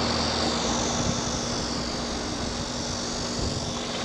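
Steady machine noise: an even rushing hiss with a constant low hum underneath.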